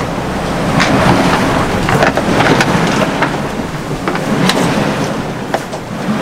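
Water rushing and rumbling against the hull inside the cabin of a Clipper 70 ocean racing yacht heeled under sail, with frequent sharp knocks and clatters from the boat and loose gear.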